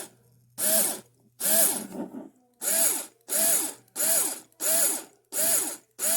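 Ryobi HP54L 4-volt cordless screwdriver's motor run in short bursts: about eight quick trigger pulls, each a brief whir that rises in pitch as it spins up and falls as it winds down.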